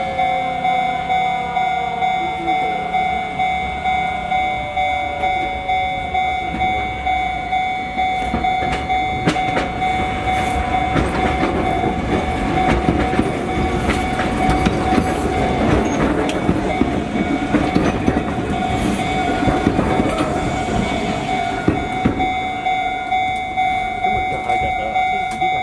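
Japanese level-crossing alarm ringing its repeated ding, about one and a half strokes a second, with no let-up. From about eight seconds in to about twenty-two seconds, an Enoden (Enoshima Electric Railway) train rolls over the crossing with a rumble and wheel clatter, and a falling whine is heard in the first few seconds.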